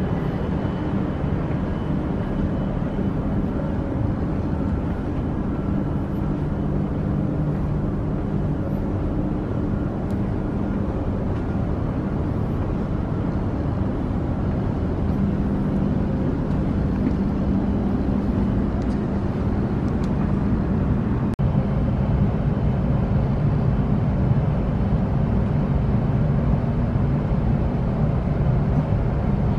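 Cabin running noise of a Hokuriku Shinkansen train at speed: a steady low rumble with a hum, growing slightly louder about two-thirds of the way through.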